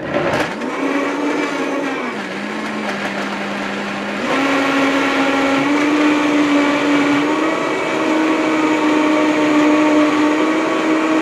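Countertop blender motor running on a shake of frozen fruit, cheese, yogurt and milk. It spins up at once, its pitch dips for about two seconds, then it climbs and runs louder and steady as the mix blends smooth.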